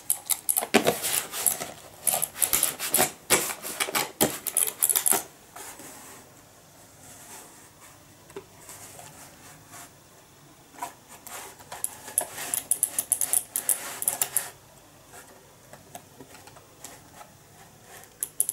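Two-button ball mouse for the Amiga being moved about and clicked on a hard surface: two spells of dense, rapid rattling clicks, the first in the opening five seconds and the second from about eleven to fourteen seconds in, with scattered lighter ticks between.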